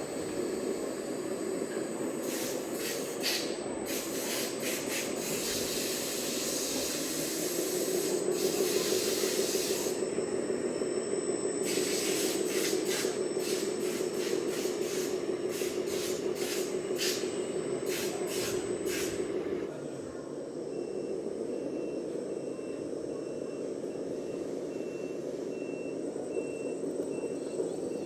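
RC construction models at work: a steady motor hum that grows louder for about ten seconds and drops back about twenty seconds in, with many short bursts of hissing over it during the first two-thirds.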